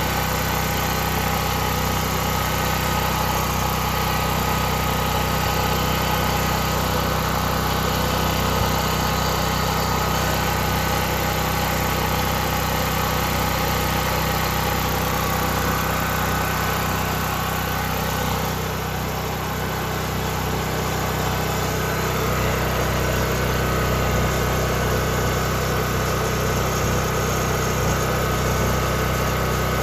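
Westinghouse WGen5300 portable generator's single-cylinder four-stroke engine running steadily at constant governed speed, with a slight dip in level about two-thirds of the way through.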